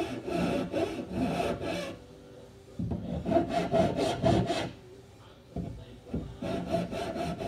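Hand tool cutting into the edge of a wooden board in quick back-and-forth strokes, like sawing or rasping, in three bursts with short pauses between.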